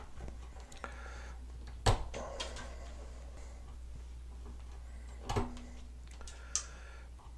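Lineman's pliers stripping insulation off household electrical wire: quiet handling with two sharp clicks about three and a half seconds apart, the first the loudest, and a smaller click near the end.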